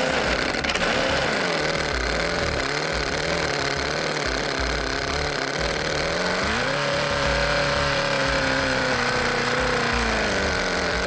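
CV Motion Technology AA01 prototype engine running: a small boxer-style engine with a rod rack and gearing in place of a crankshaft. It runs at a low, wavering idle, is revved up sharply about two-thirds of the way through, holds the higher speed as it sags slightly, then drops back near the end.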